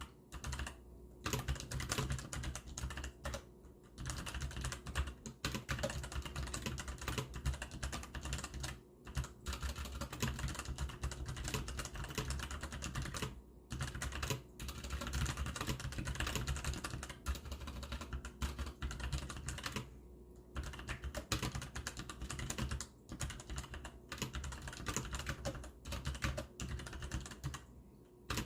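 Hansung GTune GK600 mechanical keyboard with brown (tactile) switches being typed on fast and continuously. The key clacks come in quick runs, with a few short pauses of about half a second.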